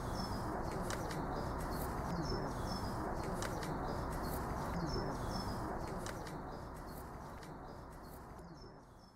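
Garden ambience of birds chirping and cooing over a steady background hiss, fading out over the last few seconds.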